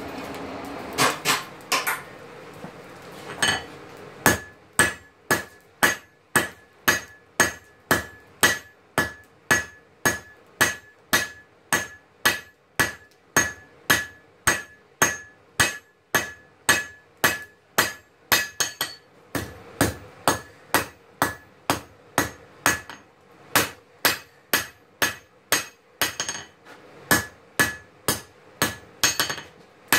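A hand hammer forges a red-hot steel knife blank on an anvil, striking steadily about three times every two seconds after a few scattered first blows. Each strike carries the same clear ringing note of hammer on steel and anvil.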